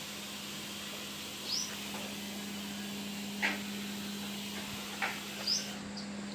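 Quiet background: a steady low hum, with a few brief high chirps and a couple of light taps.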